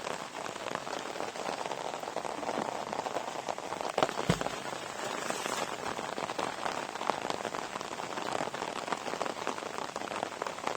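Heavy rain coming down, an even hiss dotted with many close drop hits. A single louder knock with a low thud comes about four seconds in.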